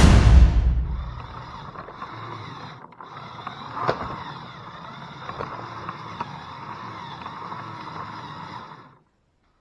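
Small electric motors and plastic gearing of a Lego Technic 6x6 truck running, a steady whine with scattered clicks, one louder click about four seconds in; it cuts off suddenly near the end. Background music fades out in the first second.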